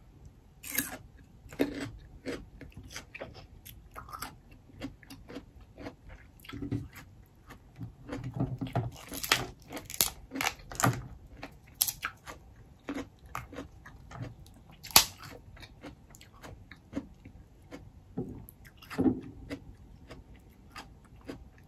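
Close-miked eating: wet chewing and crunching of raw radish and snow crab, mixed with irregular snaps and cracks of snow crab leg shells being broken apart by hand. The loudest is a single sharp crack about three-quarters of the way through.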